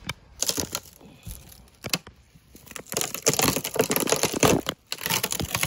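Legs being broken off a wooden table by hand: a few sharp cracks at first, then a longer run of cracking and splintering wood in the second half.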